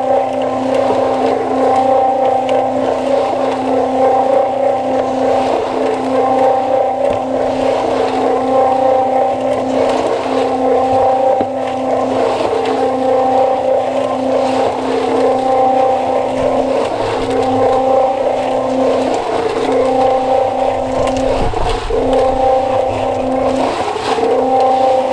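Cement mixer running steadily, heard from inside its turning drum: a constant machine hum with the gritty rush of concrete mix tumbling against the drum wall.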